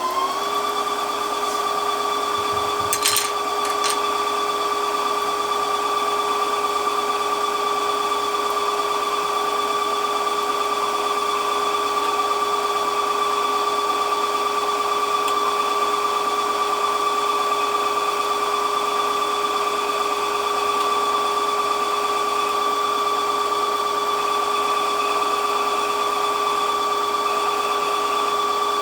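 Brother A150 sewing machine's motor running at a steady high speed to wind a bobbin, giving an even whine. A couple of light clicks come about three seconds in.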